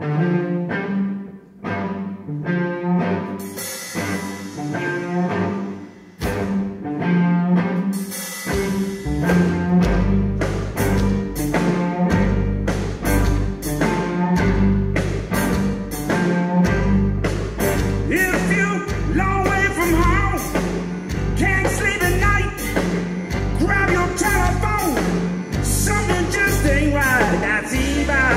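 Live blues band playing: a repeated electric guitar riff opens, and about eight seconds in the full band comes in with drums and bass. Bright wavering lead lines ride over the band in the last ten seconds.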